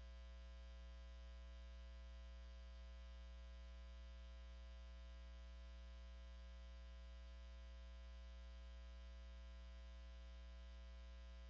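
Near silence apart from a faint, steady electrical mains hum with a buzzy edge.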